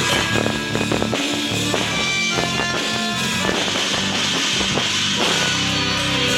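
Rock-style music with a drum kit and guitar: a steady run of drum hits over held guitar notes.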